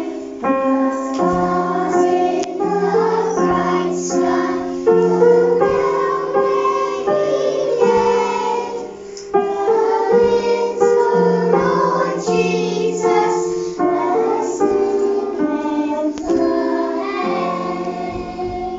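A group of children singing a carol in held, steady notes, fading out near the end.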